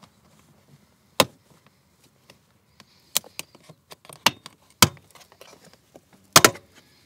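A plastic door sill plate being pried up, its retaining clips letting go one by one with sharp snaps: about six, with a quick double snap near the end the loudest. Light rustling and handling noises fall between the snaps.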